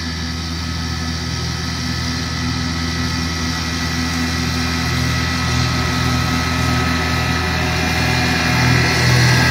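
Kubota G2160 ride-on mower running steadily while mowing with its 52-inch mulching deck, growing gradually louder as it drives closer.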